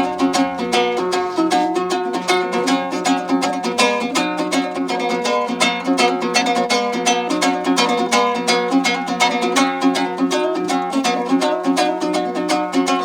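Background music on a plucked string instrument, typical of a dombra, played in fast, even strokes over steady held notes.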